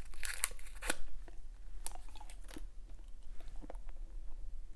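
Close-miked chewing of a fresh, sugary wad of Hubba Bubba bubble gum, with wet crunching clicks. A dense run of crackles comes in the first second, then the clicks thin out.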